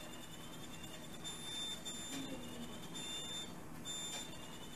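High-pitched beep tone from a surgical energy generator, sounding in repeated pulses of about half a second while the probe is fired to shrink disc tissue during endoscopic spine surgery.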